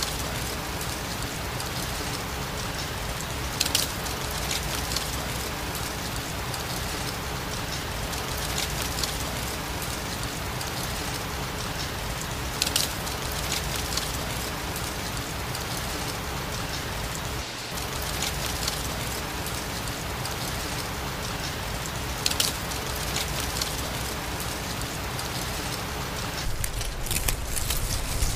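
Autumn leaves falling through a forest: a steady rain-like rustling hiss, with a brief sharper rustle every few seconds.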